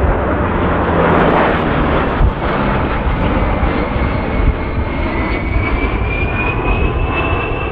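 Two A-10 Thunderbolt II jets flying in formation with a piston-engined P-38 Lightning overhead: a steady, loud engine rumble. Over the second half a high whine rises slowly in pitch.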